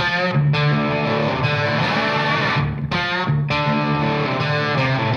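Background music led by guitar, playing a run of steady chords.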